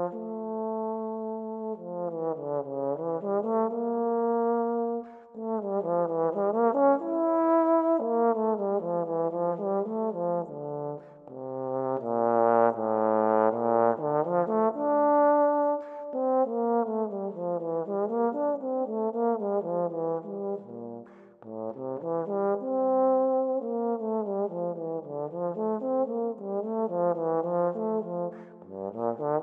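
Trombones playing a melodic passage in harmony, several parts moving together, with short breaks between phrases.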